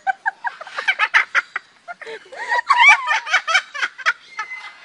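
Salmon-crested (Moluccan) cockatoo imitating human laughter: a quick run of short chuckling calls, loudest about two and a half to three seconds in.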